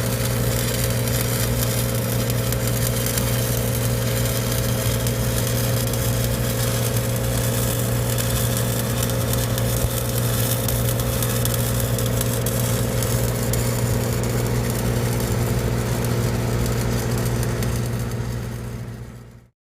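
Engine-driven welding machine running at a steady speed, a constant low drone with an even hiss over it, fading out near the end.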